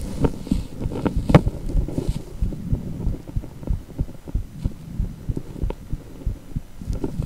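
Heartbeat sound of a cardiac ultrasound (echocardiogram), a steady rhythm of low, throbbing pulses at about two beats a second.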